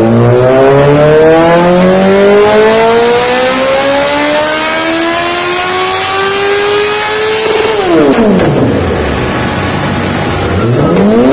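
Honda CBR1000 inline-four engine pulling hard on a dyno, its pitch climbing steadily for about seven seconds. It then drops off sharply as the throttle closes, with popping as the revs fall, and begins revving up again near the end.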